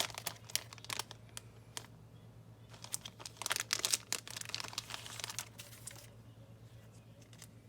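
Plastic bag and plastic card sleeves being handled and opened, crinkling and rustling in bursts, busiest about three to six seconds in, over a faint steady low hum.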